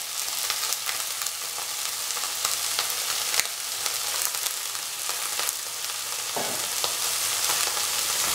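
Tomato wedges and onions sizzling in hot oil in a frying pan, a steady hiss with scattered crackles and pops as the tomatoes' juice meets the oil.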